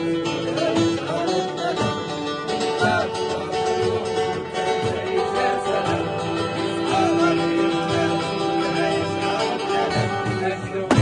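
Music played on plucked string instruments, with a voice singing over steady held notes.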